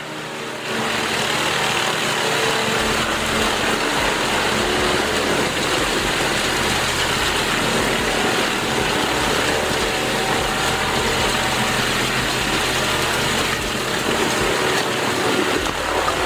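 Vermeer horizontal grinder running under load, its diesel engine and grinding drum chewing up wooden pallets and scrap timber into chips. A loud, steady, dense noise that sets in about a second in and holds without a break.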